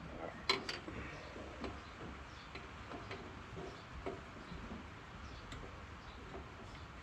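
Scattered light metallic clicks and clinks from hand tools, a wrench and socket being fitted and worked on a nut, irregular at about one or two a second, the sharpest just after the start.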